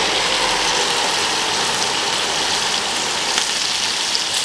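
Cheese-topped field mushrooms sizzling steadily on the hot grill plate of a Ninja Woodfire grill. A low hum cuts out within the first second.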